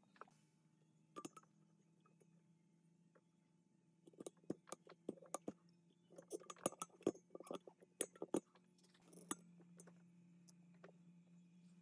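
Light metallic clicks and clinks from small hard parts being handled, in a quick irregular run through the middle, over a low steady hum.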